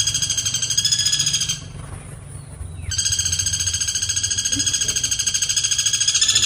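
Woodpecker calling in two long, rapid, even-pitched trills. The first breaks off about a second and a half in, and the second starts after a short pause.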